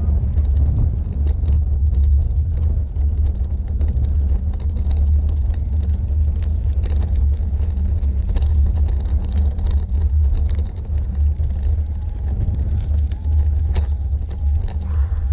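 E-bike rolling along a rough gravel farm track, heard through a camera mounted on the bike: a loud, steady low rumble of wind and vibration on the microphone, with many small clicks and rattles from the tyres on loose stones.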